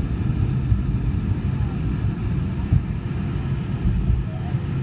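Steady low cabin rumble of a Boeing 717 in its initial climb just after takeoff: the two rear-mounted Rolls-Royce BR715 turbofans and the rushing airflow, heard from a forward window seat.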